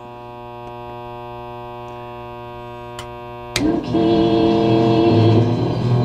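LM1875 chip amplifier running with no filter capacitors on its rectified power supply, putting out a steady buzzy hum through its speaker. About three and a half seconds in, music starts playing through the amplifier, with the hum still underneath it.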